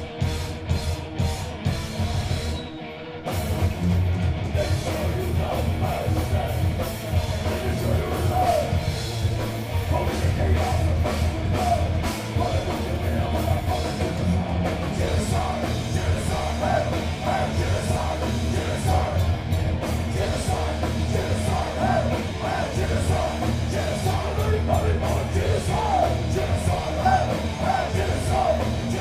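Heavy metal band playing live, loud, with drum kit and amplified instruments; the sound thins out briefly about three seconds in, then the full band comes back in.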